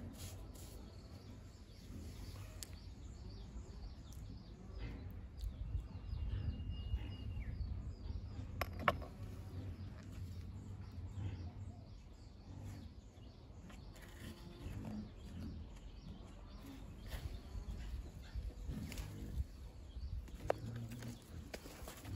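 Hands pressing, scraping and handling gritty soil in a stone pot, with scattered soft crunches and rustles and one sharp click about nine seconds in; soil is poured in near the end. A low steady rumble underneath, and a brief bird whistle about six seconds in.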